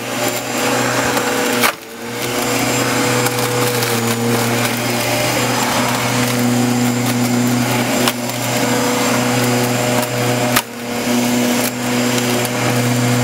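Bosch Rotak 32 corded electric rotary lawnmower running under load as it cuts grass and weeds: a steady motor hum with the blade hissing through the grass. The sound drops out briefly and suddenly twice, about two seconds in and near eleven seconds.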